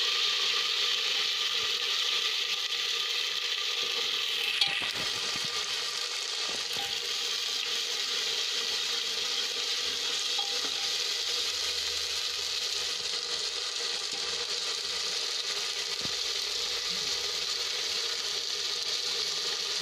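Onion, garlic and ginger paste frying in hot oil in a pressure cooker, a steady sizzle as it is stirred with a steel ladle. About four and a half seconds in there is a single sharp clink of the ladle against the pot.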